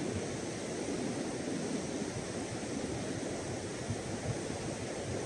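Steady wash of surf breaking on the beach, mixed with light wind on the microphone.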